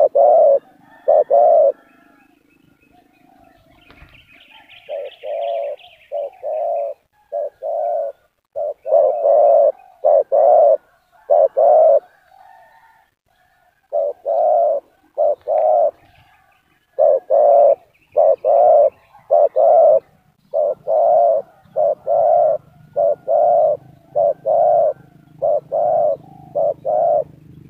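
Spotted doves cooing: runs of short, low coos in quick groups, broken twice by pauses of about two seconds.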